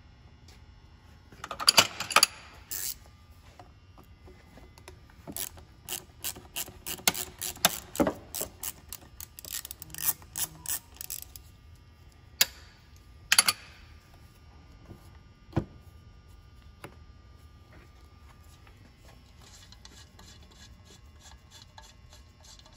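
Hand tools working the small Torx screws of an intake sensor: a clatter about two seconds in, then a run of sharp clicks for about six seconds, followed by a few single clicks and a knock.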